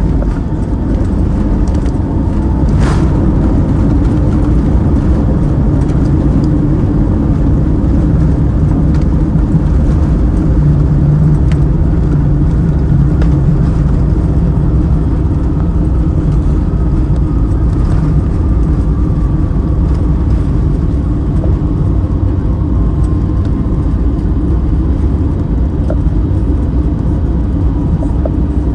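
Steady rumble of engine and airflow noise inside an Airbus A321's cabin in flight, with a faint whine that slowly falls in pitch over the second half and a single click about three seconds in.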